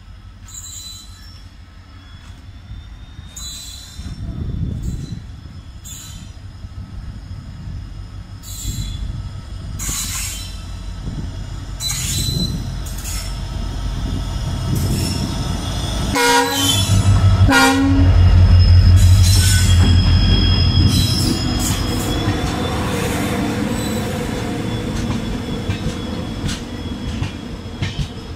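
Train crossing heard from the window of a moving train: rail clatter and a thin high wheel squeal, then two short locomotive horn blasts about sixteen seconds in. The oncoming diesel locomotive then passes close by with a loud low engine rumble, and its LHB coaches follow with a steady rush of wheels.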